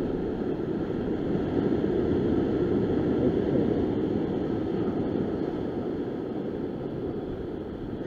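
Ocean surf breaking and washing over rocks, a steady rush that swells a couple of seconds in and eases off towards the end, with wind on the microphone.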